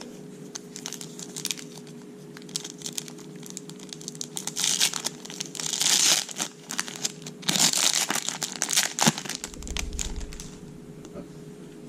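A trading-card pack wrapper crinkling and being torn open, in several bursts of rustling with small clicks of handling between them.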